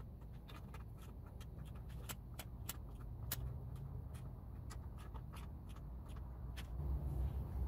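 Ratchet wrench clicking in short irregular runs as bolts on an outboard's water pump housing are turned, over a steady low rumble.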